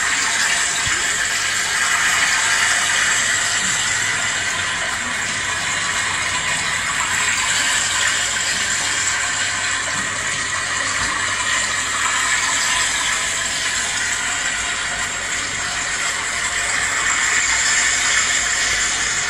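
Steady, even rushing noise, like running water, unchanged throughout and loud.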